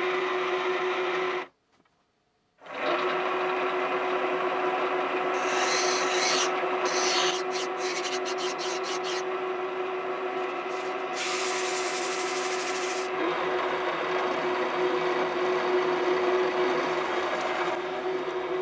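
A small TV-7M school lathe runs with a steady hum while a steel workpiece is filed on it, giving a continuous rasping rub. The sound cuts out abruptly about a second and a half in, then comes back a second later.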